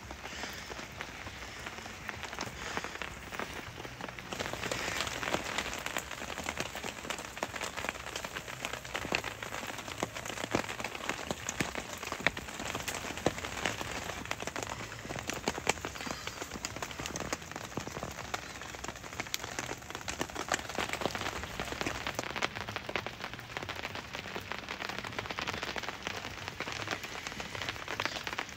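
Rain falling steadily, with many separate drop hits. It grows heavier about four seconds in.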